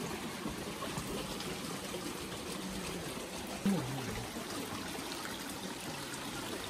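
Water trickling steadily, like a small stream. About halfway through, a short low sound drops in pitch.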